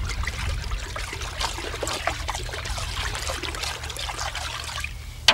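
Liquid sloshing and splashing in a metal pot as a stick stirs a vineyard spray mix of water, copper lime and sulphur preparation, with small knocks throughout. The stirring eases off near the end.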